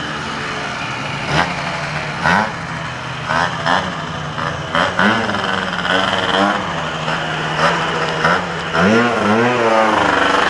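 Small modified scooter engine idling steadily, with short throttle blips that rise and fall in pitch; in the last couple of seconds several quick revs follow one another.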